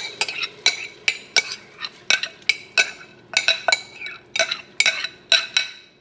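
Metal spoon clinking and scraping against the stainless steel inner pot of an Instant Pot as soaked dal is stirred in, about three ringing clinks a second, stopping shortly before the end.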